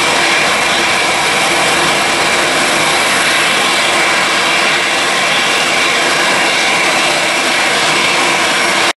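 Boeing 747-400's four jet engines climbing out after takeoff: a steady, loud roar with a faint steady whine over it.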